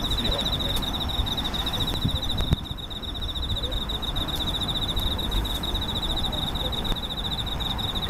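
Bell crickets (suzumushi) singing steadily, a high, rapidly pulsing trill, over a low rumble, with a soft knock about two and a half seconds in.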